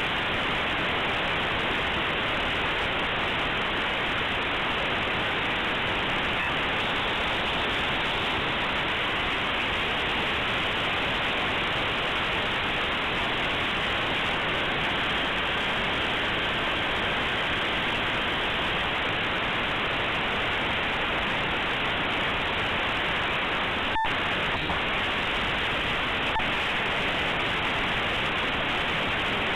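Compressed Linux kernel image played as raw audio through aplay: a steady, even hiss like radio static. A brief click comes about 24 seconds in.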